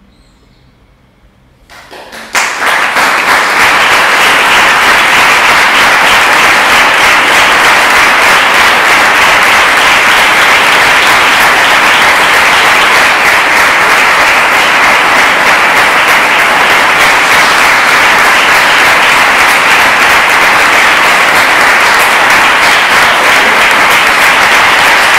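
After a brief hush, an audience breaks into applause about two seconds in: loud, dense, steady clapping that cuts off suddenly at the end.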